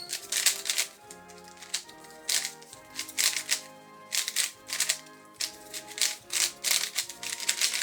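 Cheap 3x3 puzzle cube, freshly lubricated with Cube Sauce, being turned rapidly in a speedsolve: quick clusters of plastic clicks and clacks from the layers, over background music.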